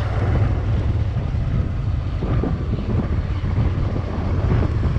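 Honda Transalp motorcycle running steadily while being ridden, its engine rumble mixed with wind buffeting the microphone.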